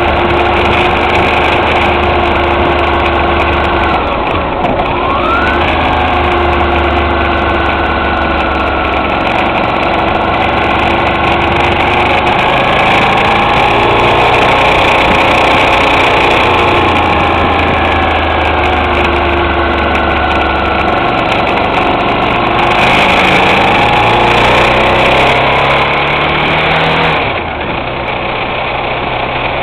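Twin-cylinder motorcycle engine running on the road, its pitch dropping and climbing again as it shifts through the gears, with a quick dip and rise about four seconds in. Near the end the engine eases off and the sound turns quieter.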